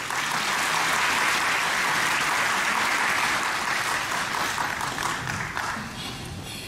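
Audience applauding, the clapping dying down over the last couple of seconds.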